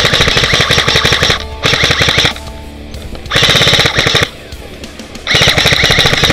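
Airsoft rifle firing four loud full-auto bursts of rapid clicks, each between about half a second and a second and a half long, with short pauses between.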